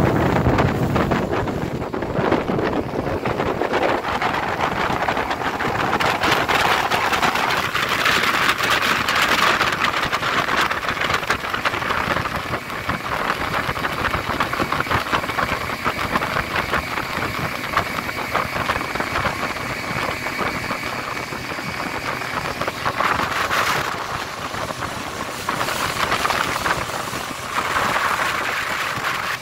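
Speedboat running fast over open water: steady engine drone mixed with wind rushing on the microphone and the hiss of water off the hull, swelling louder a few times. A faint steady high whine runs through the middle.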